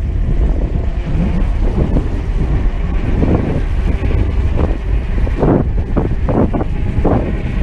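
Wind rushing over the microphone during a mountain-bike ride, with a heavy low rumble, and a quick run of knocks and rattles from the bike between about five and seven seconds in.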